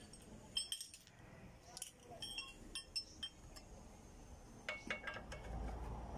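Metal tools and steel drum-brake hardware clinking together in several short clusters of sharp clinks, each with a brief metallic ring.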